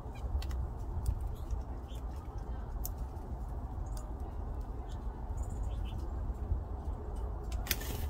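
Steady low rumble with faint, scattered short clicks and chirps around an American goldfinch feeding at a seed feeder. Just before the end, a brief louder flutter as the goldfinch flies off.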